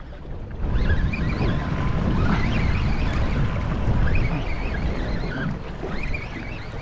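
Wind buffeting the microphone over sea water sloshing and rushing along the hull of a small boat moving at trolling speed, a steady noisy rumble without a clear tone.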